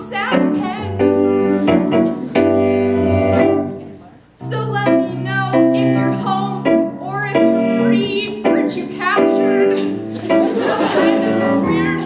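A woman singing an improvised song, holding long notes, accompanied on a Nord Stage electric keyboard. The music breaks off briefly about four seconds in, then carries on.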